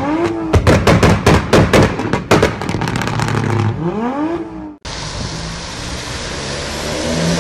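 A rapid string of sharp bangs and pops, about five a second, over short rising engine revs, as in a race-car sound effect; it cuts off abruptly about five seconds in. Then a turbodiesel car with tyre hiss on a wet road, growing steadily louder as it approaches.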